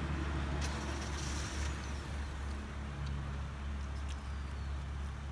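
Steady low rumble of background noise, with a few light clicks of chopsticks and spoons against noodle bowls.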